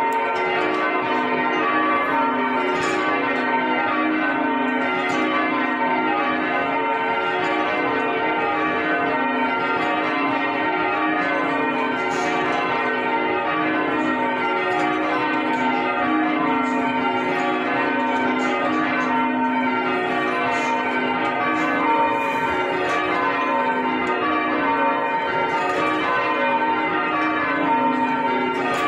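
A newly restored ring of six church bells being raised, the bells striking over one another in a continuous, jumbled clangour, heard from the ringing chamber below.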